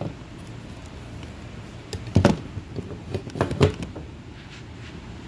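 A few dull knocks and clunks, one about two seconds in and a quick cluster around three and a half seconds, over a steady low background noise.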